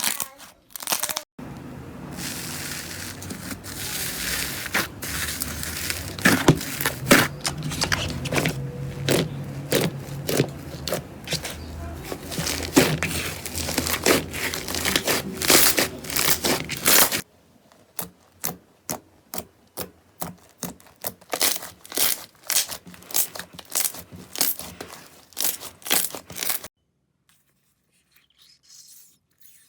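Slime being squeezed and pressed by hand, crackling, crinkling and popping in a dense run. From about halfway on it breaks into separate sharp pops about twice a second.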